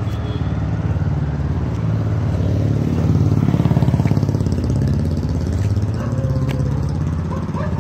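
An engine running steadily: a low rumble with a fast, even throb, a little louder in the middle.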